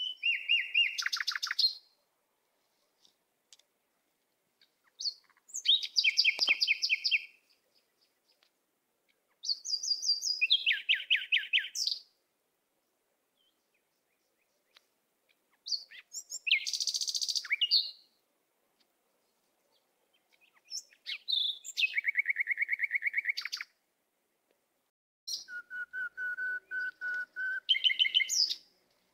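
A songbird singing in high, rapid trilled phrases, each two to three seconds long, repeated about every four to five seconds with silent pauses between.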